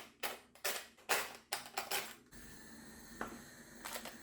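About six quick rubbing strokes of a rolling pin rolling the delicate dough thin on a board. A faint steady hum follows, with a few light clicks.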